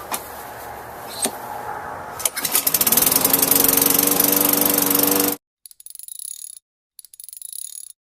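Craftsman push mower's small engine starting after two sharp clicks, catching about two seconds in, its note rising as it comes up to speed, then running steadily and loudly for about three seconds before cutting off suddenly. It runs with a fresh carburetor, spark plug and air filter, the fix for a mower that wouldn't start or stalled after a few seconds. Short bursts of high chiming follow near the end.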